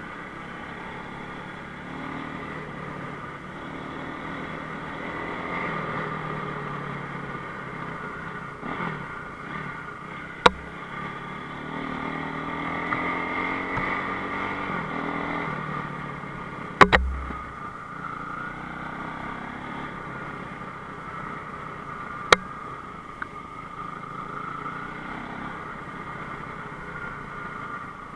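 Enduro motorcycle engine running with changing throttle, its pitch rising and falling. Three sharp knocks cut through it, the middle one loudest, with a deep thud.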